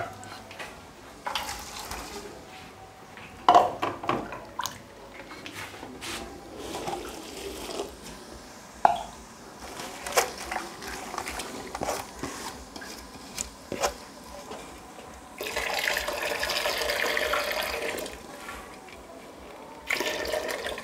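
Hands swishing and rubbing small dried sardines (omena) in water in a metal pot, with scattered splashes and knocks against the pot. About three-quarters of the way through, water pours steadily for a couple of seconds, with another short pour near the end as the washing water is drained off.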